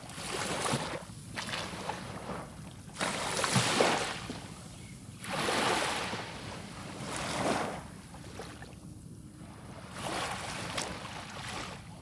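Small sea waves breaking and washing up the beach in repeated swells about every two seconds. The loudest swell comes a little under four seconds in.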